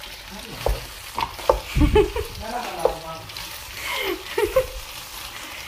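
Boiled macaroni frying in ghee and oil in a pot, sizzling as a wooden spoon stirs it, with irregular knocks and scrapes of the spoon against the pot.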